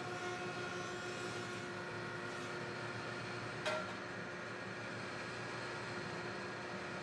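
Grizzly G0856 8-inch jointer with a helical carbide cutterhead running steadily as a board is pushed across it, a fairly quiet, even hum with a few held tones. A single short click a little past halfway.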